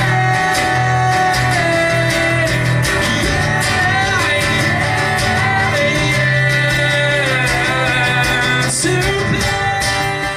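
Acoustic guitar music played live: steady strummed chords with a melody line that slides up and down over them.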